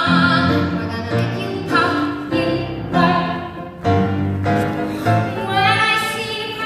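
Live female vocal performance with grand piano accompaniment: piano chords struck roughly once a second, and a soprano voice singing with vibrato that comes back strongly near the end.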